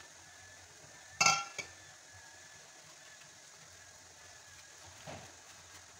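Food being packed into purple plastic lunch-box containers on a granite countertop: one sharp, briefly ringing clack about a second in, a quick lighter tap just after, and a softer knock near the end, over a faint steady hiss.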